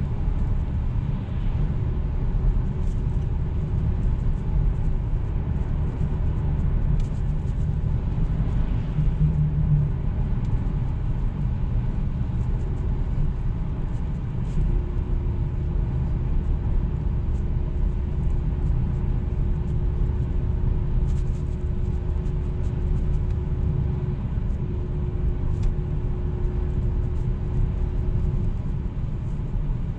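Jaguar XF 2.7-litre V6 diesel driving, heard from inside the cabin: a steady low engine and road rumble, with a faint steady hum that comes and goes.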